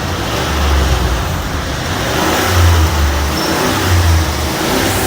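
Car engine running, with its low rumble swelling three times as the revs rise and fall.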